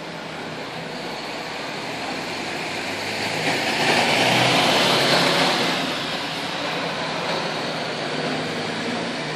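MAN Lion's Coach diesel coach driving past close by. Its engine and tyre noise swell to a peak about four to five seconds in as the rear-engined coach goes by, then fall away as it pulls off.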